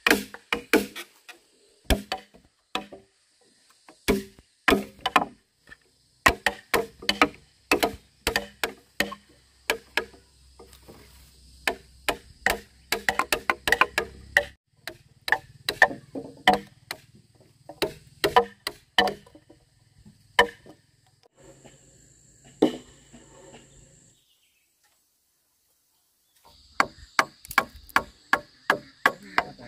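Hand tools striking timber in carpentry work: many sharp wooden knocks and chops in irregular runs. The sound drops out for about two seconds past the two-thirds mark before the strikes resume.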